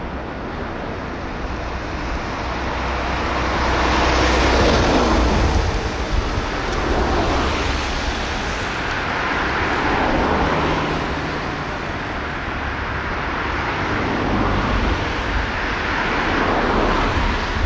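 Outdoor rushing noise over a low rumble, swelling and fading every few seconds with no distinct event in it.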